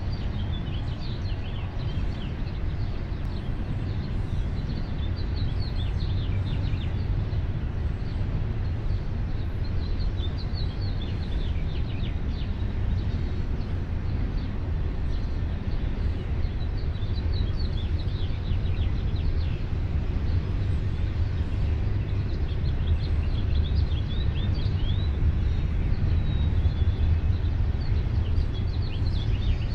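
Many birds chirping and singing in short high calls over a steady low rumble, which is the loudest part of the sound.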